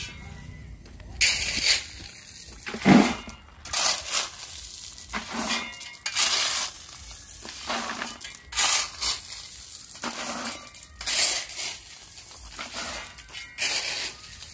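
Steel shovel scraping into crushed gravel, with the stones rattling as they are tipped into a plastic bucket. The scrapes and rattles come about once a second.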